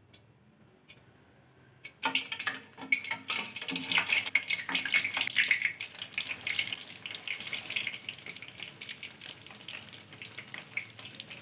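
Stuffed tofu (tahu aci) deep-frying in hot oil in a wok: a dense sizzle and crackle of bubbling oil. It starts after about two seconds of near silence, is loudest for the first few seconds and then settles to a lower, steady sizzle.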